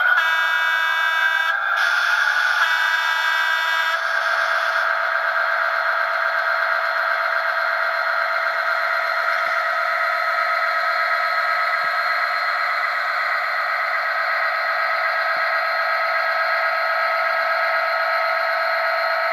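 Two horn blasts from a model locomotive's sound decoder, the second starting about a second after the first ends, over the recorded sound of a 12-cylinder EMD 710 diesel prime mover running steadily. It all comes through the model's small speaker, so it is thin with no bass.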